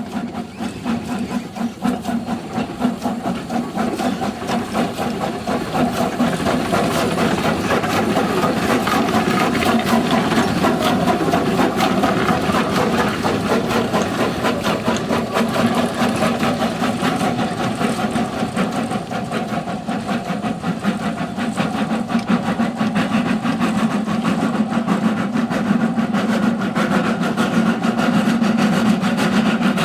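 Snowdon Mountain Railway rack locomotive working, a steady fast mechanical clatter over a constant hum that grows louder over the first several seconds, then holds.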